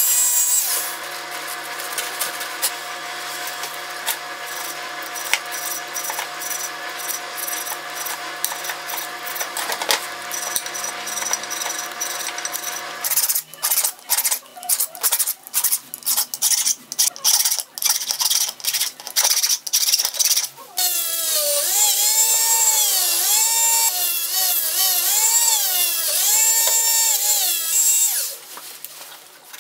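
A small high-speed rotary tool runs steadily, cleaning the steel teeth of a pipe-vise jaw. A little before halfway it gives way to a quick run of rasping strokes, a hand file on steel. About two-thirds through a motor comes back, its pitch repeatedly dipping and rising as it is pressed into the work.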